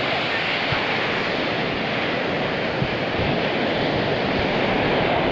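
Ocean surf rolling onto a beach, a steady wash of waves, with wind buffeting the microphone in a few low thumps.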